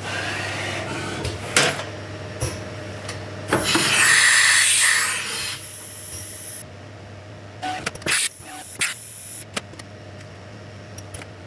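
CNC machine-shop work while the cutting tools are set and zeroed: scattered clicks and knocks of tools and metal parts over a steady low machine hum, with a loud hiss lasting about two seconds a little over three seconds in.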